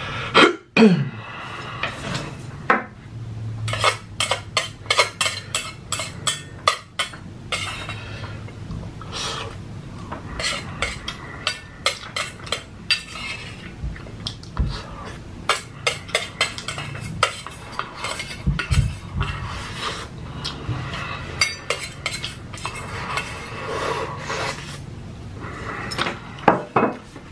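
Close-miked eating of ramen noodles: an eating utensil clicking and scraping against a dish again and again, amid chewing sounds.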